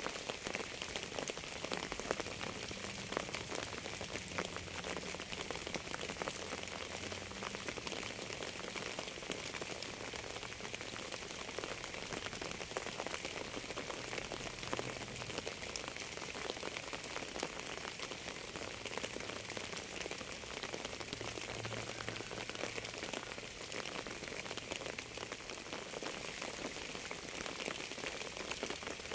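Steady rain with a dense, even patter of raindrops hitting a surface.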